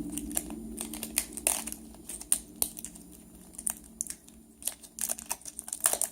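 Toy packaging crinkling and crackling in irregular sharp clicks as it is handled and torn open, the clicks coming thicker near the end.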